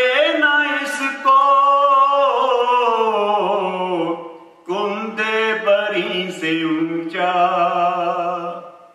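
A man sings a naat, an Islamic devotional hymn, solo and unaccompanied, in long held, ornamented phrases. One long line sinks slowly in pitch before a short breath-break about halfway through, and the voice fades away near the end.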